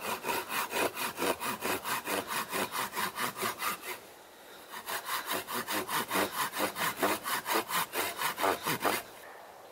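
A small handsaw cutting through a piece of wood in quick back-and-forth strokes, about four a second. There is a short pause about four seconds in, then the sawing resumes and stops shortly before the end.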